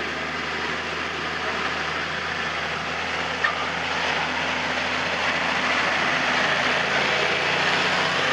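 Tractor and potato harvester running in the field: a steady engine note under a broad mechanical noise, growing slightly louder in the second half, with one sharp click about three and a half seconds in.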